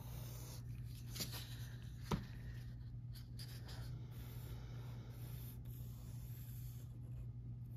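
Mechanical pencil drawing on paper: faint scratching as lines are drawn, first along a metal ruler and then freehand curves. A couple of light knocks in the first two seconds, over a steady low hum.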